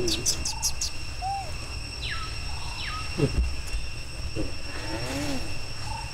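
Outdoor wildlife ambience: a steady high insect drone holds throughout, with several short chirping calls, two of them falling sharply in pitch a few seconds in, over a constant low rumble.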